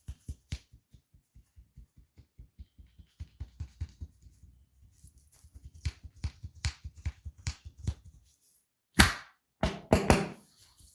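Hands tapping on skin in a quick, even massage rhythm, about five light taps a second, then three louder slaps near the end.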